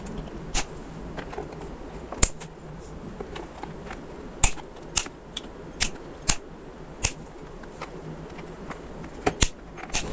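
Cutters snipping off the protruding ends of the metal repair staples embedded in the plastic, a sharp snap at each cut, about nine unevenly spaced.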